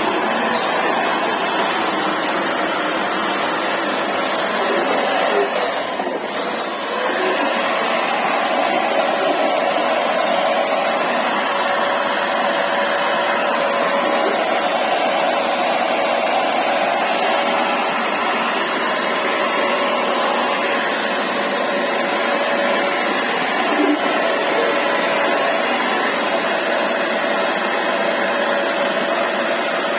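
Russell Taylors CW100 carpet washer's suction motor running steadily. It dips briefly about six seconds in, after which a steady whine comes in over the rushing air.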